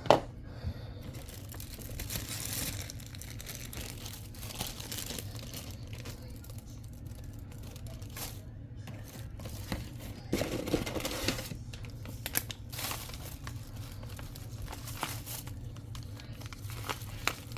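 Crinkling and rustling handling noise in irregular bursts, with a sharp click at the start and a louder stretch a little past halfway.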